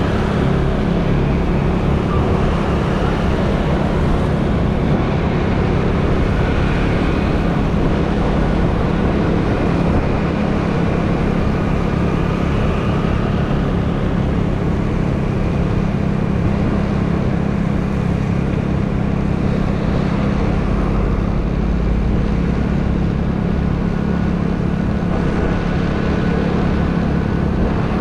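Steady vehicle engine drone and road noise from riding through city traffic, with wind rumbling on the microphone.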